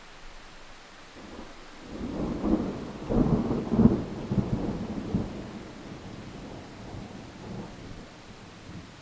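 Steady rain hiss with a roll of thunder that builds about two seconds in, is loudest a second or two later, and rumbles away over the following few seconds.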